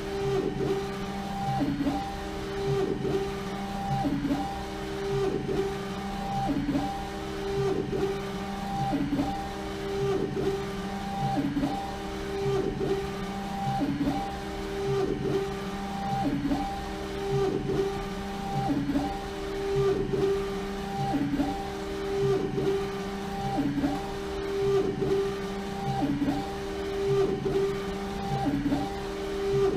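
LogoJet UVx60XL UV flatbed printer printing on a bottle in a rotary jig: the print-head carriage motor whirs back and forth, the sound swelling and falling about once every second and a quarter over a steady hum.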